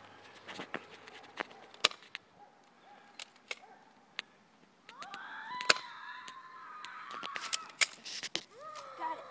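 Dart gun firing with a sharp crack about two seconds in, among scattered small clicks. From about five seconds a long, high-pitched cry holds a steady note, and a short falling call follows near the end.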